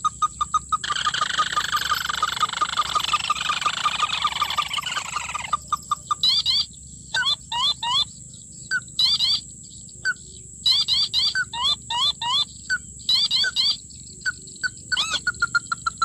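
Recorded ruddy-breasted crake calls played through a small phone speaker as a lure: rapid runs of repeated call notes, a stretch of rolling trills in the first few seconds, then rising call notes broken by short gaps, over a faint steady high whine from the speaker.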